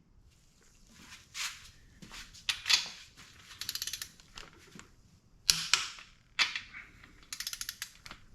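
Click-type torque wrench with a 14 mm socket being ratcheted on the engine's main cap bolts, torquing them to 70 ft-lb. Short runs of quick ratchet clicks alternate with single sharp clicks, the loudest about five and a half seconds in.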